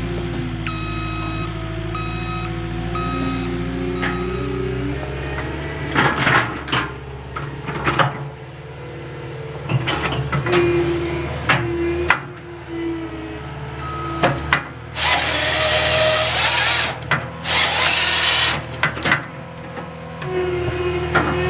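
Skid steer engine running steadily while its Halverson HWP-140B firewood processor attachment works a log. A rapid run of short beeps comes in the first few seconds, then sharp cracks and knocks, and two harsh, noisy bursts of a second or two each past the middle.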